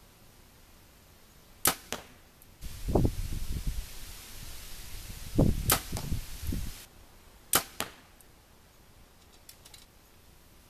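A compound bow being shot: three sharp cracks, about four seconds and then two seconds apart, with low thumps and a rushing rumble between the first two.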